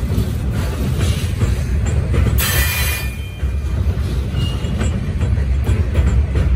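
Covered hopper cars of a grain train rolling over a steel truss bridge: a heavy, steady rumble of wheels on rail with scattered clicks, and a brief high wheel squeal about two and a half seconds in.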